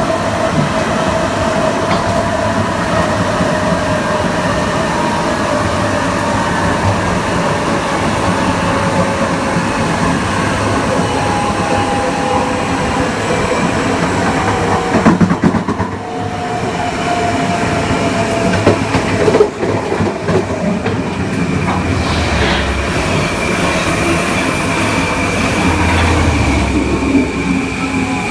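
Kawasaki M9 electric multiple unit running fast: the whine of its Mitsubishi IGBT-VVVF inverter and AC traction motors over the running noise of the wheels on the rails. The tones slowly slide in pitch and cut out briefly twice around the middle. A higher steady tone comes in during the last third.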